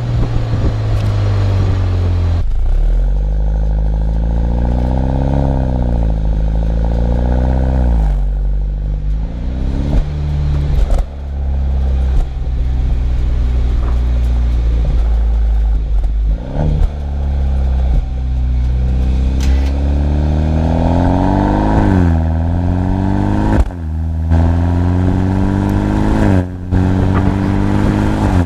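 BMW 125i's B48 2.0-litre turbocharged four-cylinder through a stock M140i cat-back exhaust, driven hard: the engine note climbs through each gear and drops suddenly at every upshift, several times over, with sharp pops and cracks from the exhaust at the shifts.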